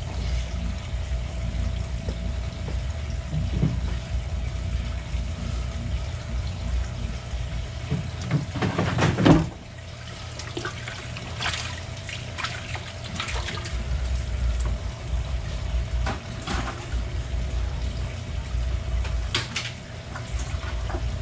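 Water sloshing and splashing in a bait tank as a dip net is swept through it to catch bait fish, loudest about nine seconds in. A steady hum runs underneath.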